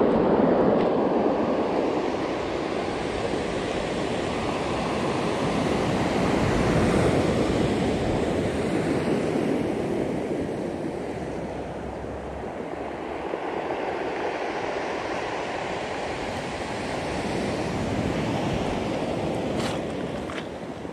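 Ocean surf breaking and washing up a pebble beach, a steady wash that swells and eases every several seconds. Two short clicks near the end.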